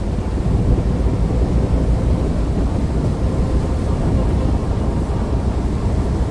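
Mercedes-Benz OC500LE CNG bus running with a steady low rumble and a faint steady whine over it. The bus's cooling fan bearing is bad.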